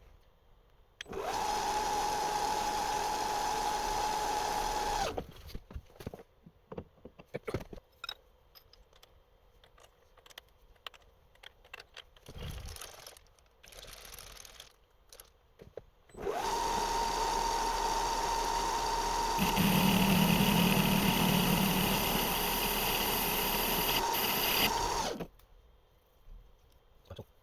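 An electric workshop machine runs twice with a steady whine, first for about four seconds and then for about nine, each run starting and stopping abruptly. The second run grows louder and fuller partway through, as if taking a heavier load. Light clicks and knocks come between the runs.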